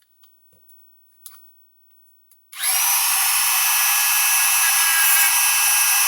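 A few light handling clicks, then a Dremel rotary tool switches on about two and a half seconds in and runs at high speed with a steady high whine, grinding the corners off a plastic part.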